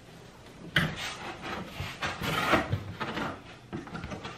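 A large corrugated cardboard box being folded into shape by hand. Its flaps are rubbing and scraping against each other in irregular rustles, starting abruptly about a second in.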